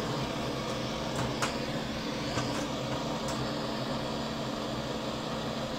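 Cartridge gas torch burning with a steady hiss, its flame preheating aluminium plates before welding.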